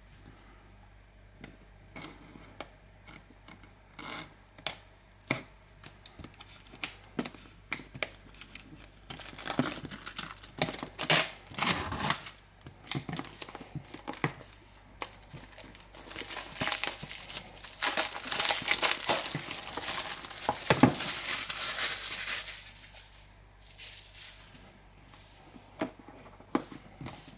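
Plastic shrink-wrap being torn off a smartphone box and crinkled. There are scattered light clicks and taps at first, then two long stretches of crackling rustle, from about nine to thirteen seconds in and again from about sixteen to twenty-two seconds, before it settles back to a few taps.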